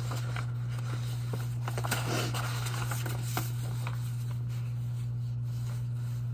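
Sheets of printed paper rustling and shuffling as they are leafed through and handled, with a few small ticks, over a steady low hum.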